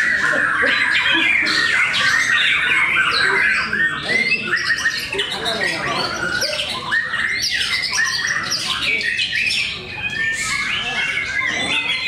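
Several caged white-rumped shamas (murai batu) singing against each other in a contest: a dense, unbroken stream of loud, rapid, varied song phrases with quick whistled glides, several birds overlapping.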